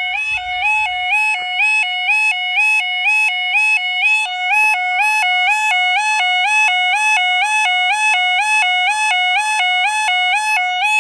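Level crossing Yodalarm sounder giving its warning: a loud two-tone warble that switches between a lower and a higher pitch about twice a second and repeats evenly throughout. It signals that the crossing barriers are down and a train is approaching.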